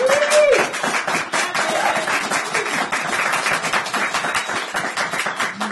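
Applause: many hands clapping in a dense, even patter, with a short vocal call near the start, slowly getting quieter toward the end.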